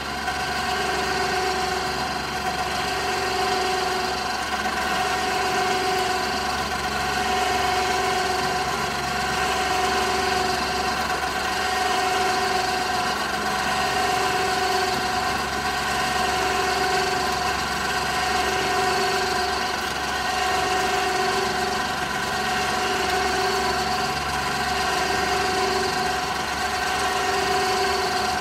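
Electric ATV winch motor running under power and slowly reeling in its line: a steady geared whine with a lower hum that swells about every two seconds.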